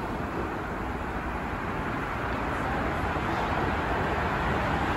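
Steady rumbling ambient noise of a railway station platform, growing slightly louder toward the end.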